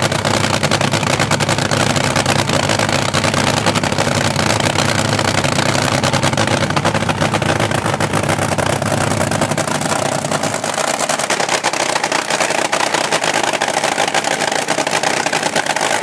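Nitro-burning engine of the Psycho III AA/FA fuel altered dragster cackling at idle: a loud, steady, rapid crackle of exhaust pulses. The deepest part of the sound drops away about ten seconds in.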